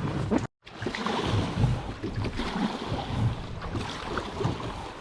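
River water splashing and flowing close to the microphone, with wind buffeting it and small scattered knocks, after a brief total dropout about half a second in.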